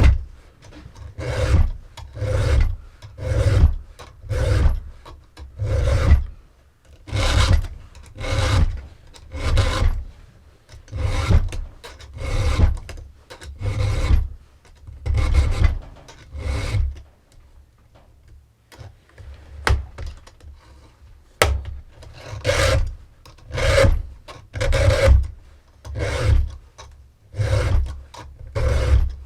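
A round chainsaw file rasping across the cutters of a Husqvarna T545 top-handle saw's chain, at a steady pace of about one stroke a second. The strokes pause briefly about two-thirds of the way through, then resume.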